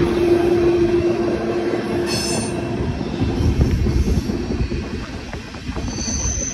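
Freight train running, heard up close from a car's end platform above the wheel truck: a loud, steady rumble and clatter of steel wheels on the rails. Over it, a steady wheel whine fades after the first couple of seconds, a brief high wheel squeal comes about two seconds in, and another high squeal near the end.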